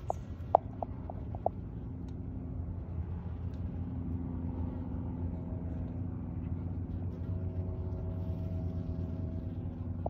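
A steady low mechanical hum, like an engine running, with a few sharp clicks in the first second and a half.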